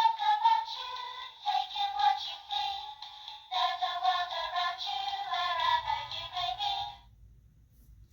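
Children's sound-book button speaker playing a tinny music clip with singing, with no bass, that stops about seven seconds in.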